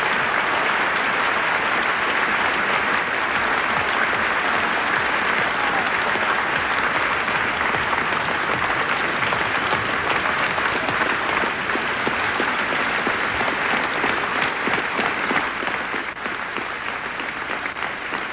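A large audience applauding in a long, steady ovation: dense clapping from hundreds of people, easing a little near the end.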